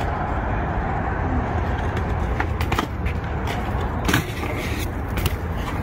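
BMX bike riding on skatepark concrete: a steady rumble of tyres rolling and air noise, with several sharp knocks of the bike hitting concrete in the second half, the loudest about four seconds in.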